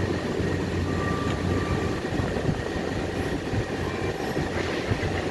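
Steady low mechanical hum over even background noise, with a brief higher tone about a second in and a few faint knocks.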